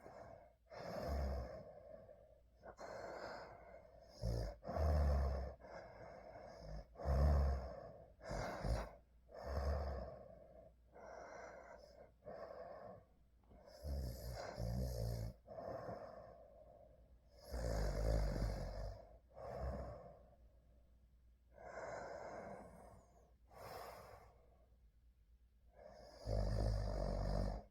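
A sleeper snoring and breathing heavily. A run of irregular snores and breaths comes every second or two, and several of them carry a low fluttering rattle.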